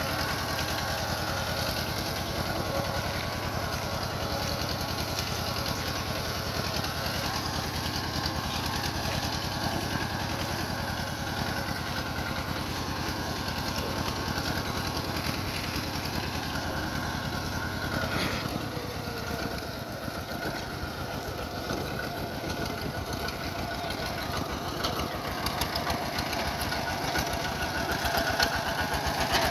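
Single-cylinder diesel engine of a Kubota walk-behind tractor running steadily under load with a fast, even chug while it drags its cage wheels and plough through a flooded paddy. About two-thirds of the way in the low chug weakens and the sound shifts.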